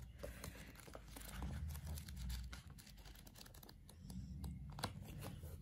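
Faint rustle of paperback manga pages being flipped through, with soft ticks of the books being handled against each other.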